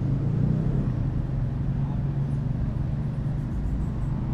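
City street traffic with a steady low engine drone from a nearby motor vehicle running at a constant speed.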